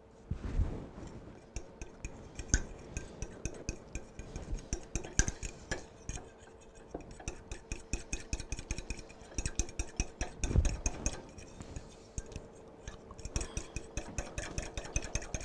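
Metal utensil whisking a flour-and-beef-broth slurry in a ceramic bowl: rapid clinks and scrapes against the bowl, with a couple of heavier knocks, one near the start and one about ten seconds in. A faint steady hum runs underneath.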